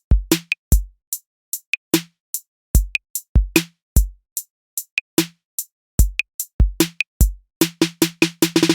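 Electronic drum-machine beat: sharp kick and snare hits with silence between them, breaking into a fast roll near the end.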